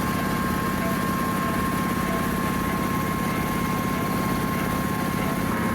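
One of the ship's twin 15-horsepower electric air compressors running steadily, a constant mechanical hum with a fast, even pulsing and a steady whine.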